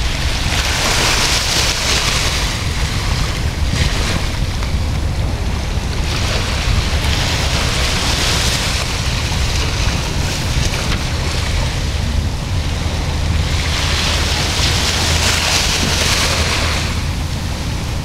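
Small waves washing up a sandy beach, the hiss of each wash swelling and fading three times, every six to eight seconds, over a steady low rumble of wind on the microphone.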